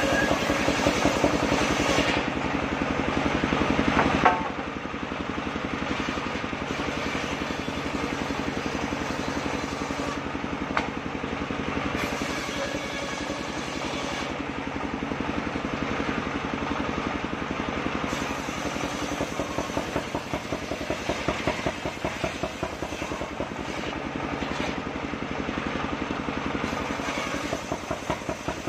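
Engine-driven circular saw machine running steadily with a fast, even engine pulse. It is louder and hissier for the first four seconds, then drops to a lower, steady run after a sharp knock about four seconds in.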